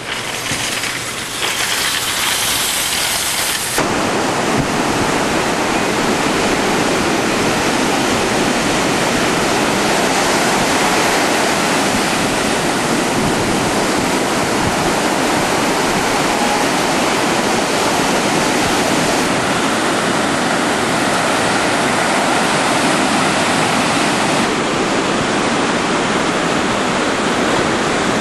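Hurricane wind and breaking surf on a beach, a loud, steady rush of noise. For the first few seconds it is a thinner, higher hiss, then it fills out into a fuller rush.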